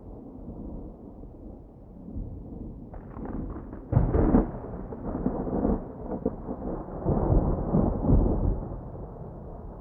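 Thunder with light rain: a low rumble breaks into crackling about three seconds in, a loud sharp crack about a second later, then rolling peals that swell again and fade near the end.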